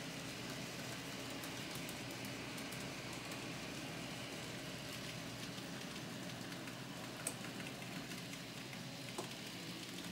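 N-scale model trains running on a T-TRAK modular layout: a steady low mechanical hum with a few faint clicks about seven and nine seconds in.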